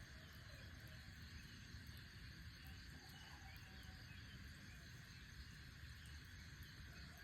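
Near silence: a steady low hum and faint hiss, with a few faint short chirps.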